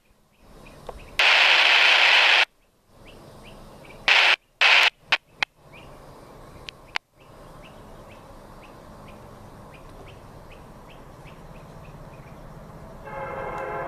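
Approaching diesel freight locomotives: a low engine rumble that grows slowly louder, then a locomotive air horn starts sounding about a second before the end. Several loud, abrupt bursts of hissing noise come in the first six seconds.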